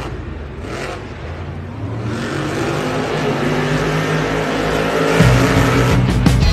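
Monster truck supercharged V8 engines running hard and revving as the trucks race over dirt jumps, growing louder and peaking about five seconds in.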